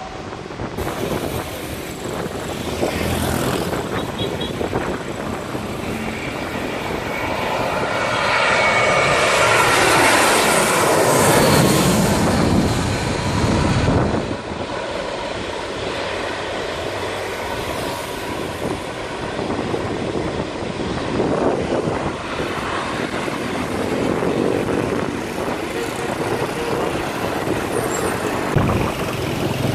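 Jet airliner on landing approach passing low overhead. Its engine noise swells to a peak and falls in pitch as it goes by, then drops away sharply about halfway through.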